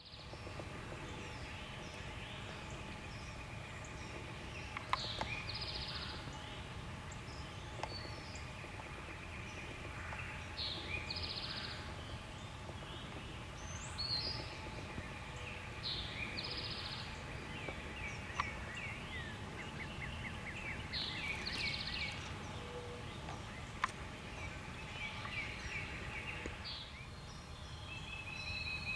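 Wild turkey gobbler gobbling about five times at a distance, with songbirds chirping in between.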